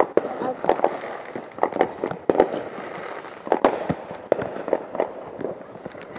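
Fireworks going off: an irregular run of sharp bangs and crackles over a hazy background.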